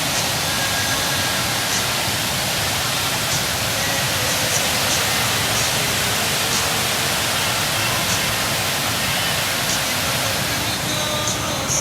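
Snowstorm wind blowing with a steady rushing hiss, with a few faint ticks now and then.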